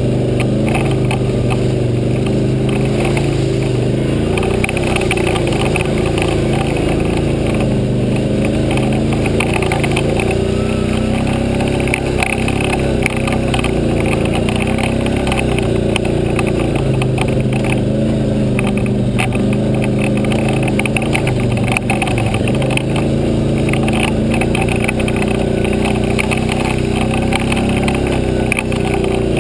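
ATV engine running steadily under way, its pitch rising and falling a little with the throttle, with frequent short clatters and knocks as the machine rides over the rough dirt trail.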